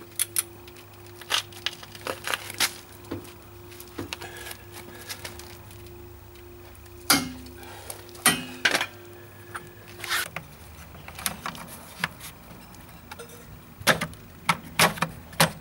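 Scattered sharp metallic clinks and knocks of tools being handled, a few seconds apart and coming quickly in a cluster near the end, over a steady low hum that stops about ten seconds in.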